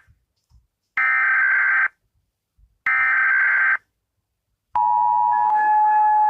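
Emergency Alert System alarm: the end of one data-burst header tone, then two more data bursts about a second long with silence between, and about five seconds in the steady two-tone attention signal begins.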